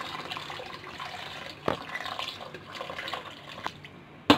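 Water being poured into a pot of rice and lentils, splashing and filling. A softer knock comes about a second and a half in, and a sharp knock near the end is the loudest sound.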